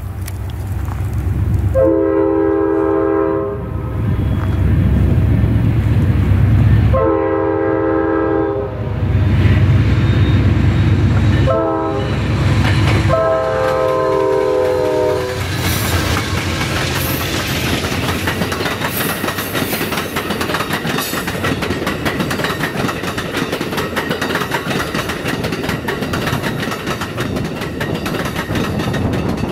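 Amtrak GE P42DC Genesis diesel locomotives blowing the grade-crossing horn signal, long, long, short, long, as they approach and pass, their engines working hard under load. Then the bilevel Superliner passenger cars roll by, wheels clicking steadily over the rail.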